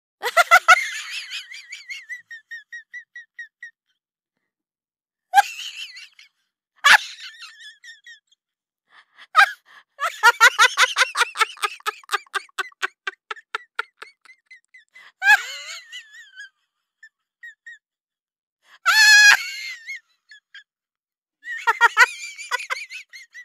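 High-pitched voice scatting in separate bursts of short sung syllables. The longest run, of about seven quick syllables a second, comes near the middle, and several bursts trail off in fading echoes.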